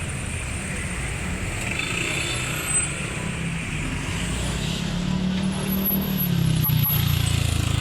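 Street traffic: a motor vehicle's engine running with a low rumble, picking up and getting louder in the second half as it moves off or passes close.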